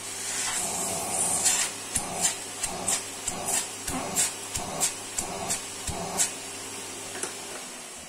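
Canister vacuum cleaner running with its wand nozzle worked against a bare hand, giving about a dozen sharp, irregular clicks and pops over the steady motor hum. The motor cuts out near the end.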